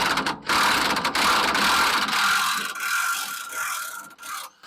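Corded electric impact wrench hammering loose the rear differential pinion nut, with a brief break about a third of a second in, then running on and stopping shortly before the end.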